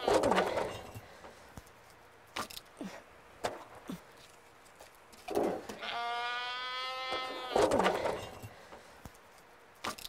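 A goat bleating: one bleat ends in a rough burst at the very start, and a second long, even bleat comes about five seconds in and also turns rough at its end. A few sharp knocks fall between the bleats.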